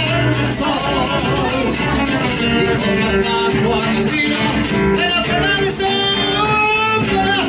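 Argentine folk ensemble led by guitar playing the instrumental introduction of a zamba.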